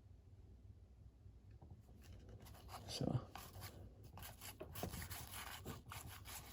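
Hockey cards being handled and slid past one another by hand: faint rustling and light clicks that start about two seconds in, with one brief louder sound about a second later.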